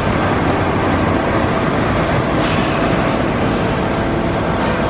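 Liebherr demolition excavator working at concrete, giving a loud steady din of engine, hydraulics and grinding concrete, with a brief sharp crack about halfway through.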